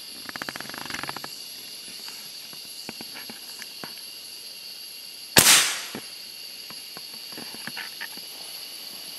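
A single gunshot from a long gun aimed up into the trees, about five and a half seconds in, with a short echo trailing off. Steady high insect calls run throughout, and a quick rattle of small clicks sounds about half a second in.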